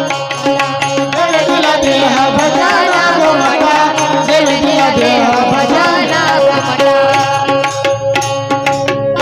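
Kirtan accompaniment: a harmonium holding steady notes with a hand drum beating out a rhythm, and a wavering sung melody through the middle.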